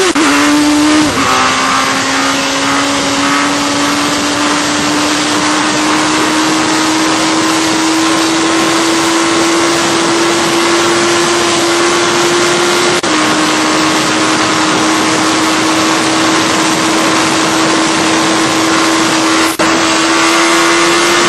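Sport motorcycle engine held at high revs under hard acceleration, its pitch climbing slowly, with wind rush loud on the microphone. The pitch steps down suddenly about a second in and again about thirteen seconds in as it shifts up, and it dips briefly near the end.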